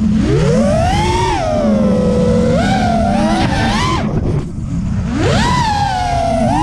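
FPV racing quadcopter's brushless motors and propellers whining, heard from its onboard camera. The pitch rises and falls with the throttle, cuts out sharply about four seconds in as the throttle is chopped, then sweeps back up about a second later.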